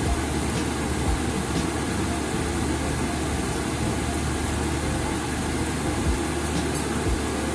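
Steady machine-like hum and hiss, with a few soft low thumps.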